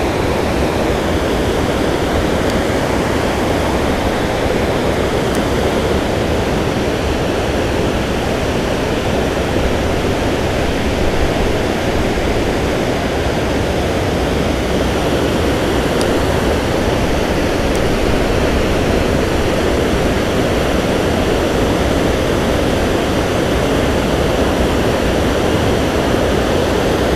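Water pouring over a low concrete spillway weir: a steady, unbroken rush of falling water.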